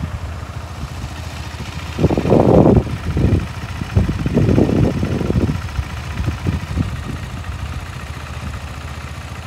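Motorcycle engine running, swelling louder twice, about two and four seconds in.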